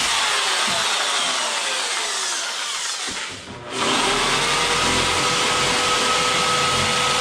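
Dremel-type rotary tool with a sanding drum grinding a rear bumper's fog-light opening. Its pitch drops over the first three seconds and it briefly eases off, then it runs again at a steady pitch about four seconds in.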